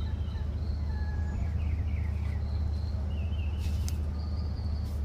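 Outdoor birds chirping, with many short whistled notes, over a steady low rumble. Two sharp clicks come near the end.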